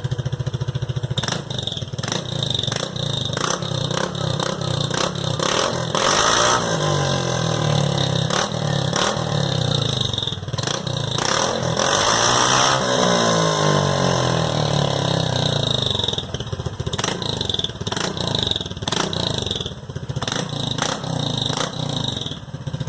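Honda PCX 150 scooter's single-cylinder four-stroke engine running through an aftermarket ML Competition crackle ('estralador') exhaust, idling and revved up twice, the pitch climbing and falling back each time. Sharp pops and cracks sound throughout.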